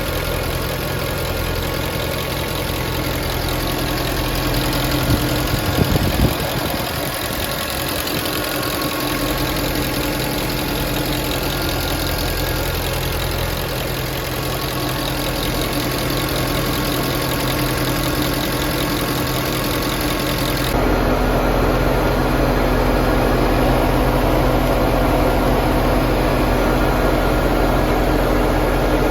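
Mercedes-AMG M156 6.2-litre V8 idling steadily. About 21 seconds in the sound changes abruptly to a second recording of the engine running.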